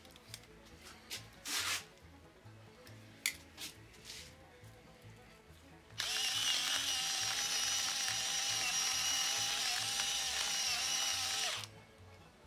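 Electric salt mill grinding salt: a steady motor whine that starts suddenly about halfway through and cuts off after about five and a half seconds. Before it, a few faint clicks and handling noises.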